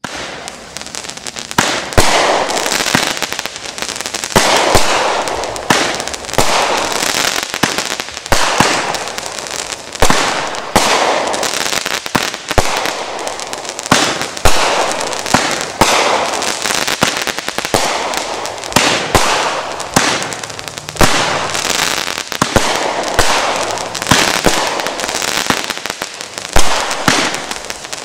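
Brothers "Blonde Joke" 36-shot 500-gram fireworks cake firing in sequence. A sharp shot goes off about every two seconds, each followed by a second or so of crackling as the sparkling stars break.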